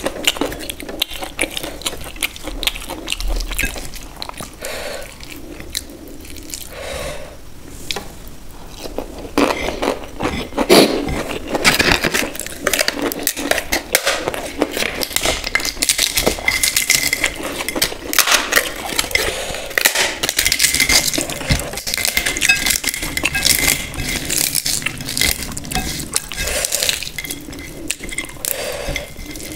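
Close-miked eating by hand: fingers squishing rice and gravy against a ceramic plate, and a roasted papad snapped and crunched while chewing. Dense, irregular crisp crackles, thickest through the middle.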